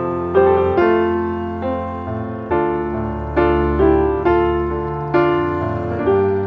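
Background music: a piano or electric-piano melody of struck notes, each dying away, played over sustained low notes at a steady, unhurried pace.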